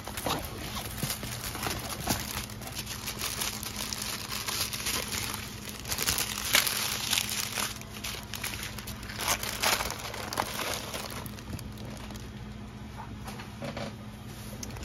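Plastic packaging crinkling and rustling as it is handled: a strip of small sealed plastic bags of diamond-painting drills and a plastic-wrapped canvas. It goes on throughout as a busy crackle, heaviest around the middle.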